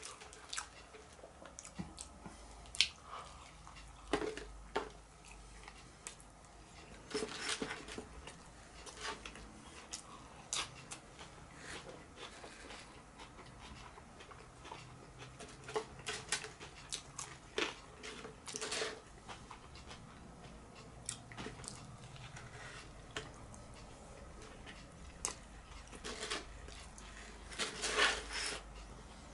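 A person chewing and biting into a breaded chicken burger, with irregular crunches and wet mouth sounds close to the microphone.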